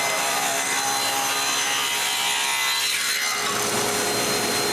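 Table saw running with its blade ripping through a strip of wood to make splines.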